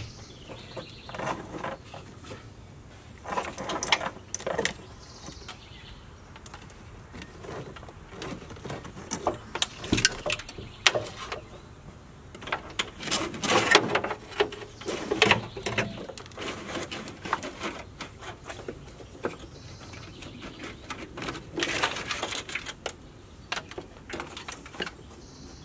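Irregular rustling, scraping and clicking as a snowplow wiring harness in plastic loom is pulled back through a truck's firewall and handled, in bursts of a few seconds with quieter gaps between.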